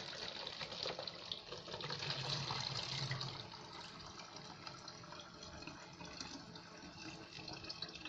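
Water poured into a plastic bottle, filling it to about half. The pouring is louder for the first three seconds or so, then goes on more softly.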